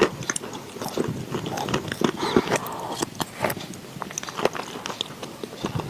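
Close-miked biting and chewing of wet chalk: a dense, irregular run of crisp crunches and small wet clicks.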